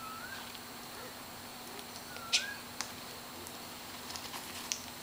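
Sulphur-crested cockatoos making soft calls: two short whistles that rise and then dip, about two seconds apart, with a sharp click just after the second, the loudest sound. A few faint ticks follow near the end.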